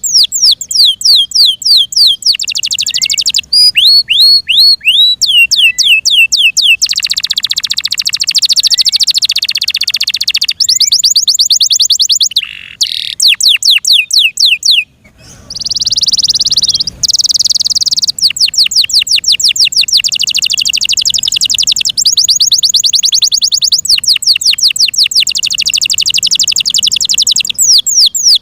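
F1 Yorkshire-cross canary singing loud, fast trills of rapidly repeated down-sweeping notes. It switches from one trill to another every few seconds, with a brief pause about halfway through.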